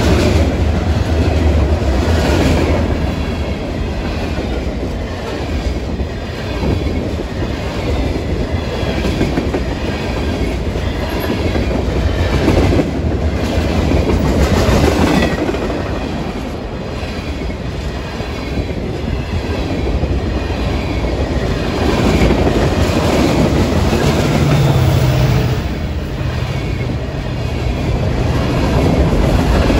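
A long freight train's cars rolling past close by, wheels clicking and clattering over the rail joints without letup. A low steady rumble sits under the first few seconds.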